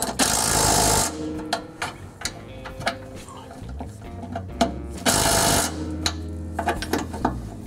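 Cordless impact driver hammering a bolt on the truck's underbody skid plate in two bursts: about a second at the start and a shorter half-second burst a little past the middle. Light clicks and clatter of the tool and socket being handled come between the bursts.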